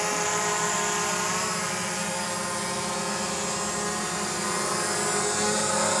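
Quadcopter drone's propellers whining steadily as it descends to land, a dense stack of even tones.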